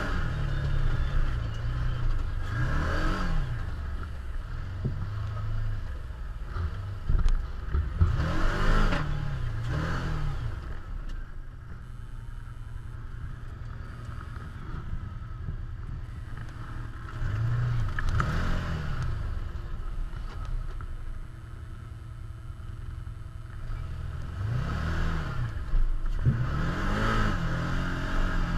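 Can-Am Commander side-by-side's V-twin engine running, heard from inside the cab, revving up and easing off several times as the machine drives along a gravel trail. There are a couple of sharp knocks about seven seconds in.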